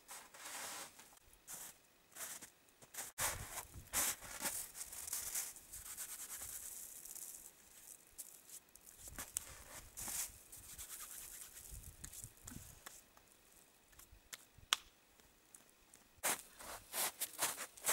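Irregular footsteps crunching in snow, with some rustling.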